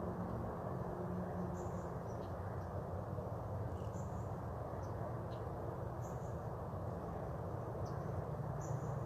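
Outdoor ambience: a steady low hum and rumble, with short, faint high chirps from a bird or insect every two seconds or so.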